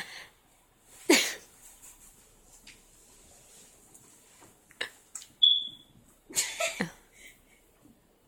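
Dog snoring and snorting in its sleep: a few irregular noisy breaths, the loudest about a second in. A short, high, clear beep sounds a little past halfway.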